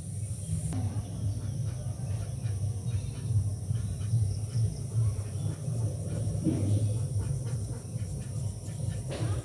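Pencil scratching on paper in short, irregular shading strokes, over a steady low rumble.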